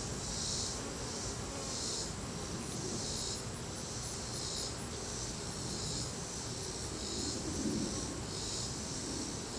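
Insects: a high chirping that pulses about once a second, over the buzz of honey bees around an open hive.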